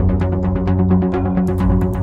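Background music with a fast, steady beat over held chords.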